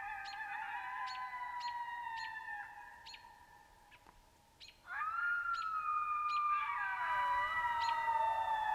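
Coyotes howling in chorus: several voices in long, overlapping, sliding wails. The howling breaks off about three and a half seconds in, and a new round starts a second later with a rising note, carrying sharp short ticks.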